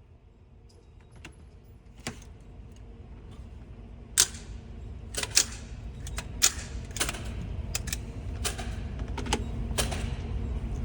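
A quick, uneven string of about a dozen sharp cracks from suppressed .22 rimfire guns being fired, starting about four seconds in, with a few of the cracks much louder than the others.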